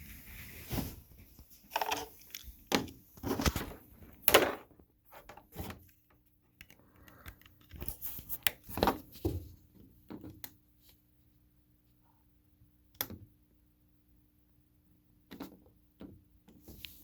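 Irregular knocks, clicks and thunks, like objects being handled and set down, clustered in the first half and again briefly about two-thirds of the way and near the end. A faint steady low hum is heard through the quiet stretches.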